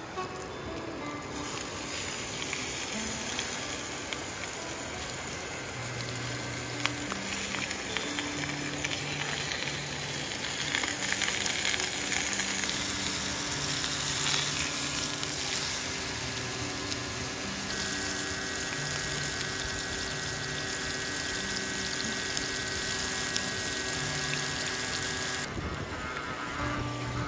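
Beef steak searing in oil in a skillet with garlic cloves, sizzling steadily from about a second in, under background music.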